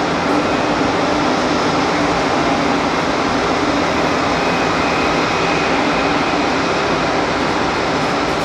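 Airbus A330-300 airliner's twin jet engines, a loud steady rush with faint steady tones, as it lands and rolls out on the runway.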